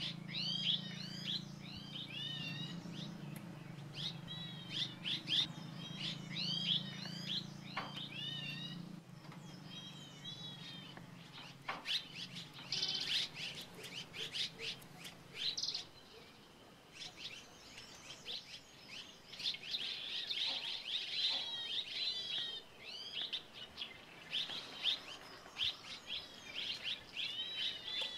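Red-rumped swallows twittering: many short, curved chirps in quick runs, with a brief lull a little past halfway. A low steady hum runs under the first half and fades out.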